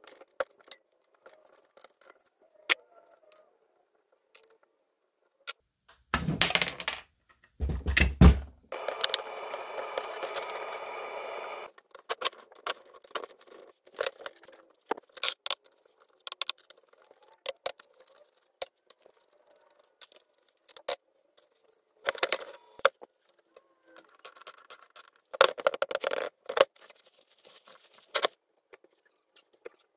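Hand tools and metal engine parts clinking, scraping and rattling as a Vespa scooter engine is taken apart on a workbench, with two heavy knocks about six and eight seconds in. Just after the knocks a power tool runs steadily for about three seconds.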